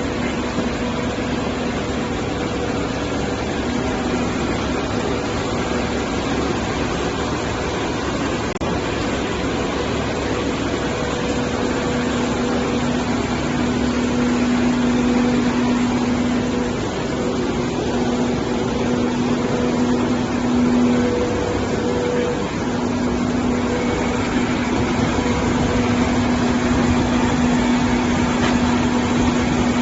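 Industrial plastic basket washing machine running steadily: a constant motor hum with a held tone, over an even hiss.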